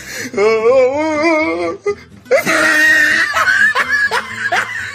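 Background comedy soundtrack with laughter: a voice wavers up and down for about two seconds, then after a short pause comes loud, breathy laughter in quick repeated bursts.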